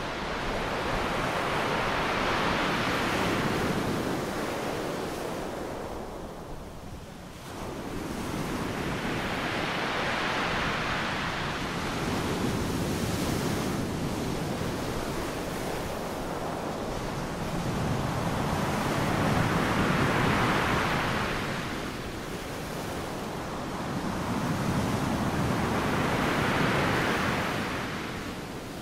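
Rushing surf-like noise of waves washing in, swelling and fading in four slow surges.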